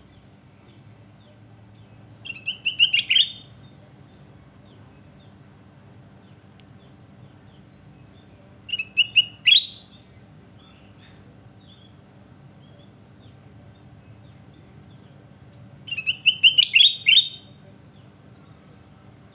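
Kutilang emas (a golden bulbul) singing three short phrases of quick, rising whistled notes, each about a second long and several seconds apart, over a faint steady hum.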